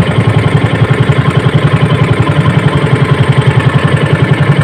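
Outrigger fishing boat's engine running steadily close by, a low, even, rapid pulsing.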